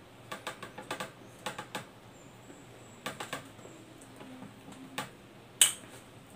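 Close-up chewing of a mouthful of bread, with wet mouth smacks and clicks coming in clusters; the sharpest, loudest smack falls about five and a half seconds in.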